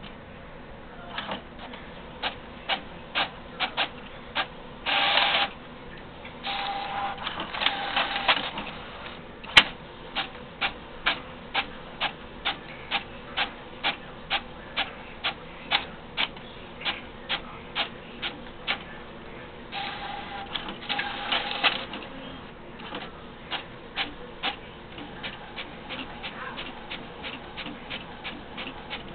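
HP Photosmart C7280 inkjet all-in-one working through a job: a long run of sharp mechanical clicks, about two a second, broken three times by a second or two of motor whirring.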